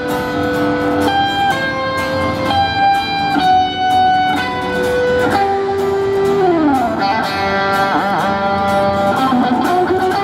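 Electric guitar playing an instrumental lead break in a rock song: long held notes, with sliding notes falling in pitch midway and bent, wavering notes near the end.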